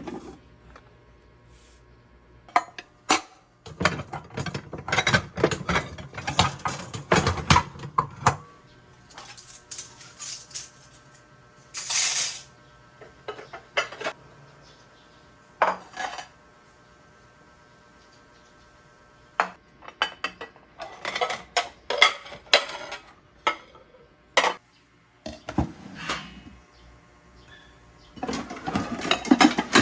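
Dishes and cutlery clinking and knocking as they are handled and put away, in irregular clusters with short pauses between. A brief noisy burst about twelve seconds in.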